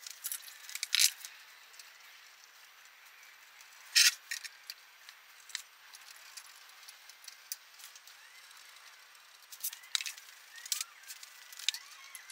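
Sparse clicks and light knocks from hands working at a power strip and plug on the side of a bandsaw's base cabinet. One sharper knock comes about four seconds in, and a run of small ticks comes near the end.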